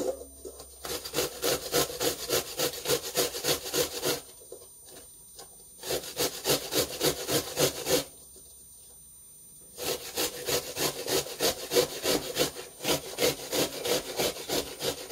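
Onion grated by hand on the coarse side of a metal box grater: quick rasping strokes, about five a second, in three runs with short pauses between.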